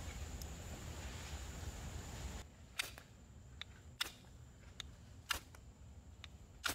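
A carbon-steel bushcraft knife shaving curls off a wooden stick, then, after a cut, the knife's spine scraped down a ferro rod in about five sharp strikes, roughly one a second.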